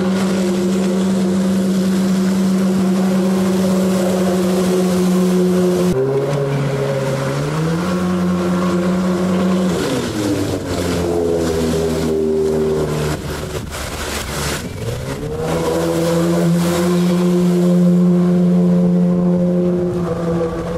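Evinrude MFE 55 two-stroke outboard with a jet pump running at high revs, pushing an inflatable boat at speed. Its note dips and recovers about six seconds in, falls away about ten seconds in and stays low for a few seconds, then climbs back to a steady high pitch about fifteen seconds in.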